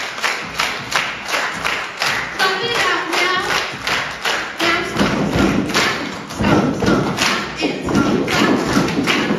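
Children's chorus singing over a steady thumping beat, about three thumps a second.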